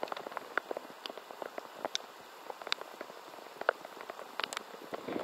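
Rain falling on a lake and the boat: a soft steady patter with many irregular, sharp drop impacts close by.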